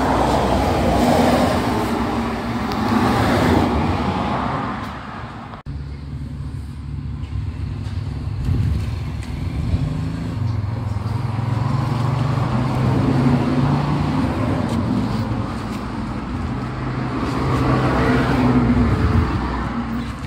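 Two-stroke engine of a Honda Hurricane 110 motorcycle converted to Nova RS running close by, its revs rising and falling in several swells, with a sudden break about five and a half seconds in.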